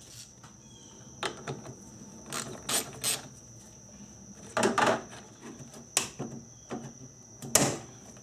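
Hard plastic clicking, knocking and rubbing at irregular moments: the retaining clips of a car's plastic air intake duct being popped and the duct worked loose by hand. The loudest clatters come about five seconds in and again near the end.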